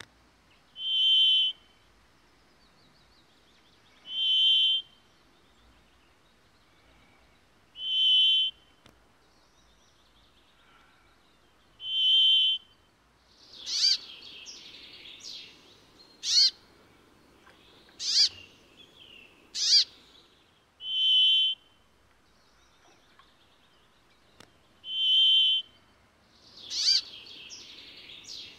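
Brambling singing its drawn-out, nasal buzzing note, one steady note under a second long repeated about every four seconds. From about halfway through, sharp, steeply falling bird calls come in between the buzzes.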